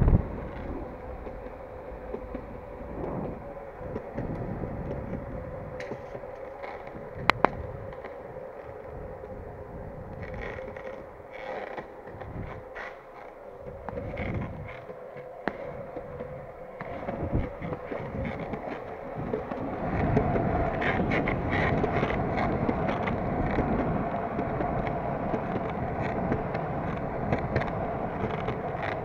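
Longboard wheels rolling on a smooth painted car-park floor: a steady humming rumble, louder from about twenty seconds in. A sharp click near the start and another about seven seconds in.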